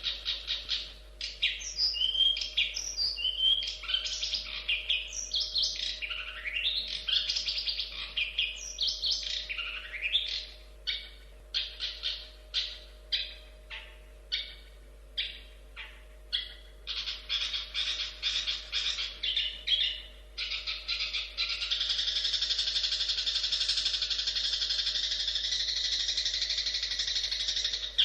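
Long-tailed shrike (cendet) singing: a varied run of sliding, whistled notes, then quick repeated notes. About three-quarters of the way in it changes to a continuous dense chatter.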